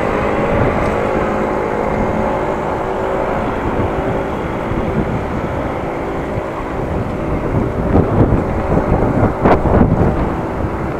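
Wind rushing over a bike-mounted action camera's microphone while riding, mixed with car traffic passing on the road alongside. The wind buffets harder in uneven gusts from about eight seconds in.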